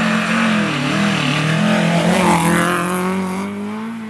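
Historic rally car engine running at high revs as it comes through a snowy corner, the pitch dipping and surging with the throttle about a second in, then climbing steadily.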